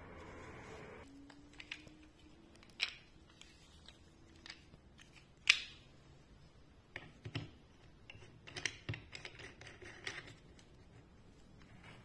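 Handling noise of hard plastic and metal tool parts: scattered clicks, taps and short knocks as a mounting bracket is taken out of a foam-lined case and fitted onto a laser level. The sharpest click comes about five and a half seconds in, with a busier run of knocks a little later.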